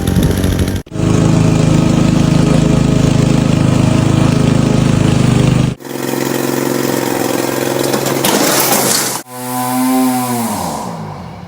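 Lawn mower engine running loudly in three clips joined by abrupt cuts. In the last clip the pitch falls over about two seconds as the engine winds down and fades.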